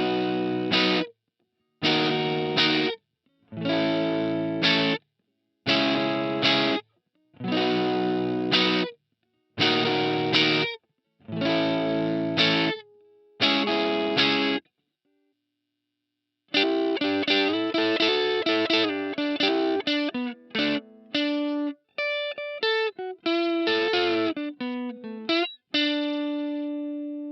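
Electric guitar sound sample: eight short strummed chords about two seconds apart, then, after a short pause, a quick run of single notes that ends on a long held note.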